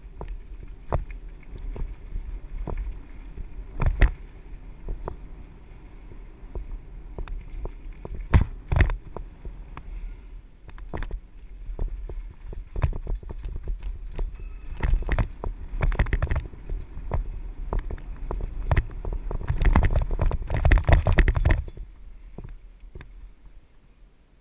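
Mountain bike riding down a dirt trail: tyres running over gravel and a low rumble, with the bike rattling and knocking sharply over bumps. The clatter is densest and loudest from about fifteen to twenty-two seconds in.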